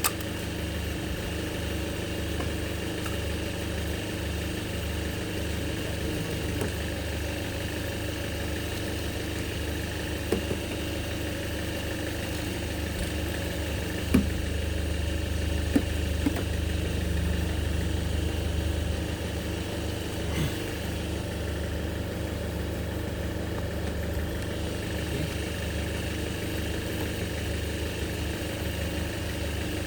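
Vehicle engine idling steadily, with a few short knocks or clicks in the middle.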